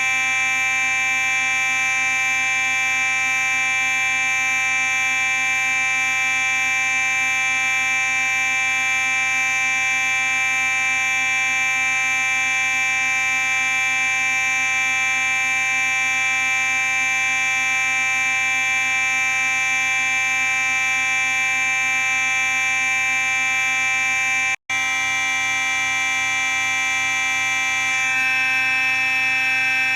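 Simplex 4903-9838 fire alarm sounding continuously as one unbroken steady tone, cutting out for a split second about 24 seconds in, then carrying on.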